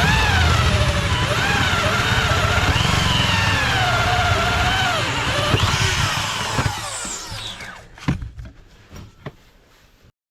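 Electric drill boring through the camper trailer's wall, the motor's pitch wavering as it loads and frees up, then spinning down about seven seconds in. A few short knocks follow.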